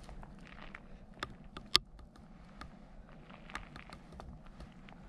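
Footsteps crunching on loose gravel in small, irregular clicks, with one sharp, louder click a little under two seconds in.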